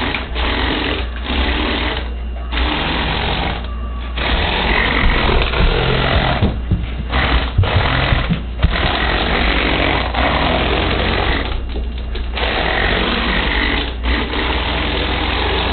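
Electric Power Functions motors and gearing of a LEGO Crystal Reaper model running loudly under remote control. The motors stop briefly several times and start again, in stretches of one to three seconds.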